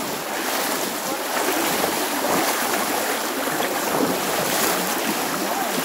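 Rain-swollen creek rushing fast and steadily, its water churning around the legs of a person wading through it.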